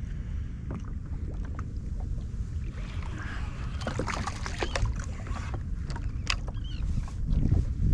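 Water sloshing against the hull of a small craft, with a steady low rumble and scattered short knocks and clicks; the rumble swells louder near the end.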